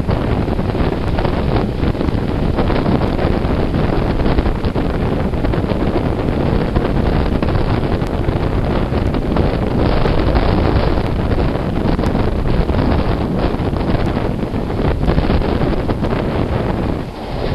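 Heavy wind buffeting the microphone held out of a moving train's carriage window, over the running noise of the train. The buffeting eases briefly near the end.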